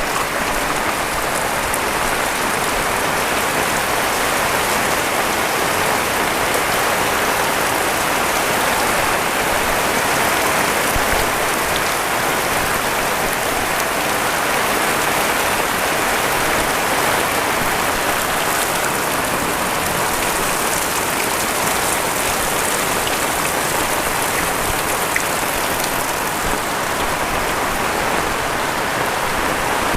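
Heavy rain falling and pattering on surfaces in a steady downpour.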